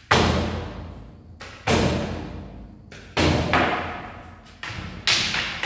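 A grass broom being whacked hard against the wall and window: four loud thuds about a second and a half apart, each echoing on and fading in the bare hall.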